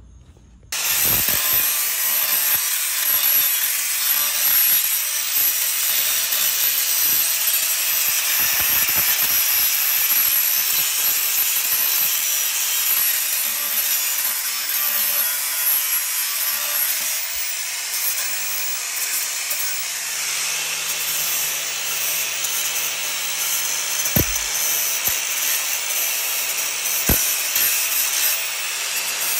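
Bosch angle grinder with a flap disc, switching on just under a second in and then running steadily with a high whine as it grinds down the cut edge of a metal bumper. There are two sharp knocks near the end.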